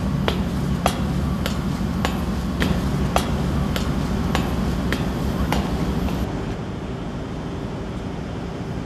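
Footsteps clanging on metal grating stairs, about ten evenly paced steps, over a steady low industrial machinery hum. The steps stop about six seconds in, leaving the hum.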